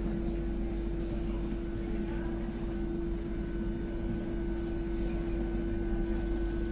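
Athens Metro train carriage heard from inside while running at steady speed: a constant low rumble with a steady hum.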